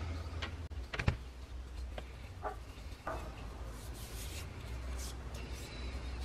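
Handling sounds of a freshly turned wooden handle: a sharp knock about a second in as it comes out of the drill chuck, then a few faint taps and soft rubbing of hands over the wood.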